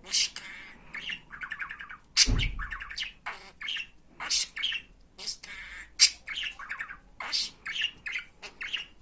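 Budgerigar chattering: a quick run of short chirps, squawks and buzzy warbling notes. About two seconds in comes a louder, sharper squawk with a low thump under it.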